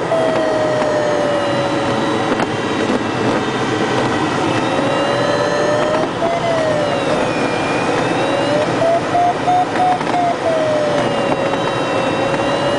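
Air rushing over a glider's canopy, heard inside the cockpit, under the electronic variometer's audio tone. The tone slowly falls and rises in pitch and breaks into short beeps at its highest about two-thirds of the way through: the vario signalling sink, then climb, as the glider works the ridge lift.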